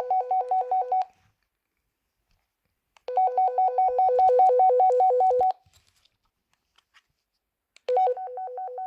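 Toy walkie-talkie call tone: a fast electronic warble switching between two pitches. It sounds in repeated bursts of a couple of seconds each, one cutting off about a second in, another in the middle, and a third starting near the end.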